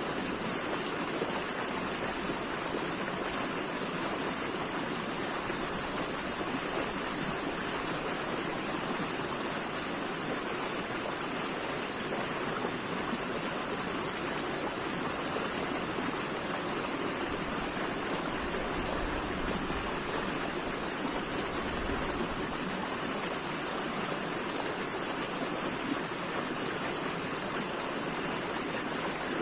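Running water: a steady, even rush that never breaks or changes.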